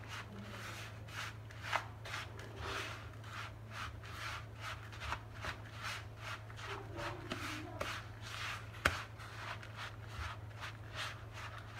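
Metal spoon stirring and scraping a crumbly rice mixture in a plastic bowl, in repeated strokes about two or three a second, over a steady low hum. One sharp click about nine seconds in.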